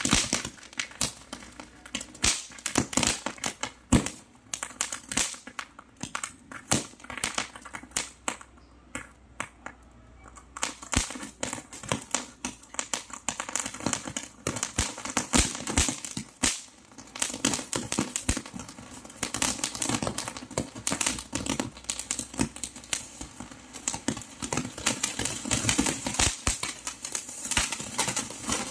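Firecrackers going off in a rapid, irregular stream of sharp cracks and pops, some much louder than others, thinning out briefly about nine to eleven seconds in.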